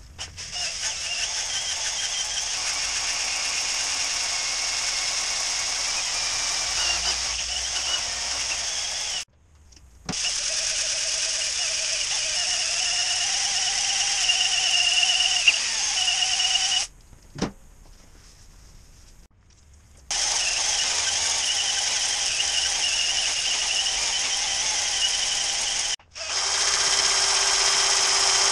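Cordless drill spinning a flex hone (ball hone) in the glazed cylinder liners of an Isuzu 4BD2T diesel block, putting the cross-hatch back in the bores. It runs with a steady high-pitched whir in stretches of several seconds, stopping briefly between them.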